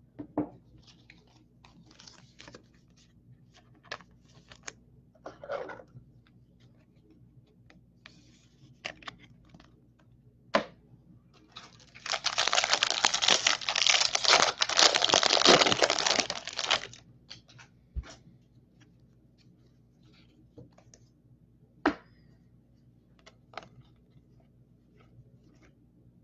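A 2019 Bowman Draft baseball card foil pack being torn open and its wrapper crinkled: a loud stretch of tearing and crinkling lasting about five seconds in the middle. Before and after it come light separate clicks and rustles of cards being handled.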